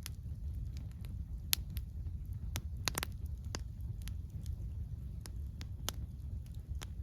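Wood campfire crackling: sharp pops and snaps at irregular intervals, with a quick cluster of pops about three seconds in, over a steady low rumble.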